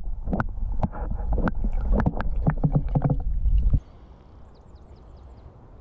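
Water sloshing and knocking against a submerged camera as a rainbow trout is released from a landing net: a muffled low rumble with many sharp knocks. It cuts off suddenly about four seconds in, leaving quiet outdoor air with a few faint bird chirps.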